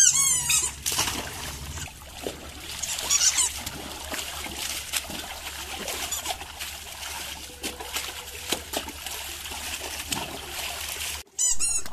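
Water splashing and trickling in a shallow plastic paddling pool as a Rottweiler and a Siberian husky move about in it and are washed by hand, with many small irregular splashes.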